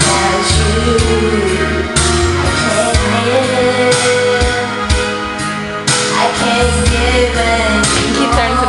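A voice singing a wavering melody over a backing track with sustained bass notes and a steady drum beat.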